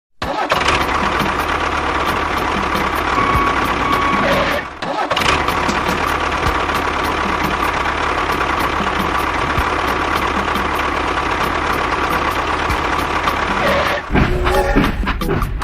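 A small engine running steadily, dropping out briefly about five seconds in. About fourteen seconds in it turns choppier and pulsing.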